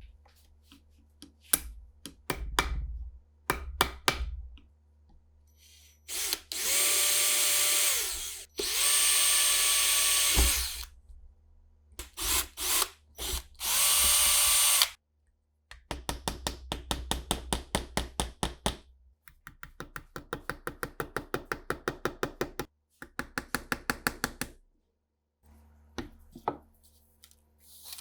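A few separate clicks and knocks, then a small power tool running in three short bursts of about two seconds each. After that comes a rapid, even clicking of about seven or eight clicks a second, in three runs.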